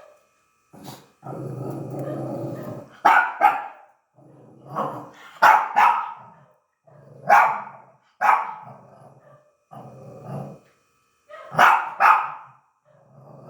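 A dog growling low for about two seconds, then barking sharply about eight times, mostly in quick pairs, with rumbling growls between the barks: barking at a house gecko.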